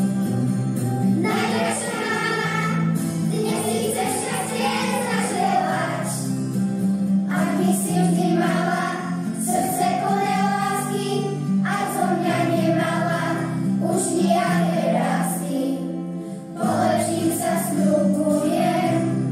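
A group of children singing a song together in unison over an instrumental backing, in phrases with short breaths between them.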